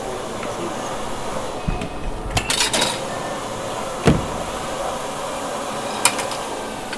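Workshop ambience: a steady background noise broken by a few scattered knocks and clatters, with a quick run of clicks between two and three seconds in and the loudest single thud about four seconds in.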